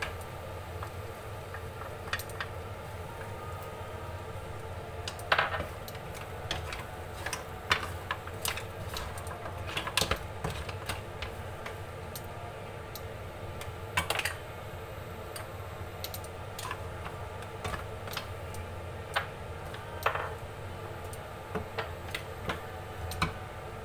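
Green mussel shells clattering against each other and the frying pan as they are stirred with a wooden spatula: irregular clicks and clacks with a few louder knocks, over a steady low hum.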